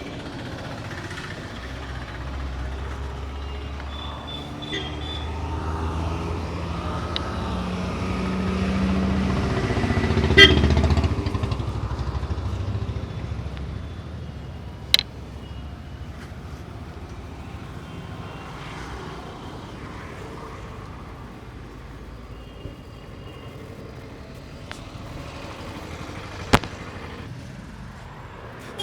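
Street traffic: a motor vehicle's low engine rumble builds, peaks about ten seconds in, then fades as it passes. A few sharp snaps stand out, one at the loudest point and two more later.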